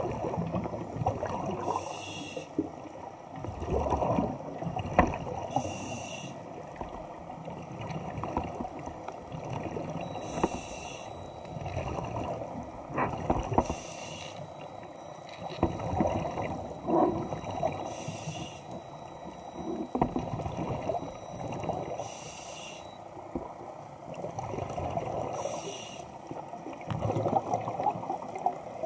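Scuba diver breathing through a regulator under water: a hiss on each inhale about every four seconds, with bubbling exhalations in between.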